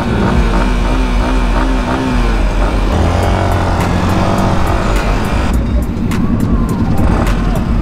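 Motorcycle engine running at low speed, its revs rising and falling, with a rushing hiss over it that cuts off about five and a half seconds in.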